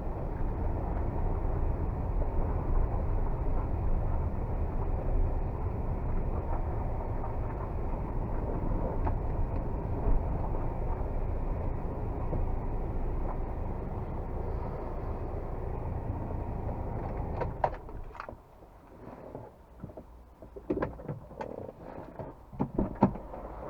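Steady engine and road rumble of a moving Kia Carens II diesel. It stops about 18 seconds in and is followed by a scatter of sharp clicks and knocks.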